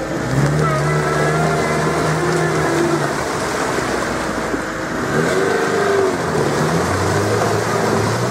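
Lada Niva's engine revving hard and unevenly, its pitch rising and falling, as the car sits stuck with its wheels spinning in deep swamp mud.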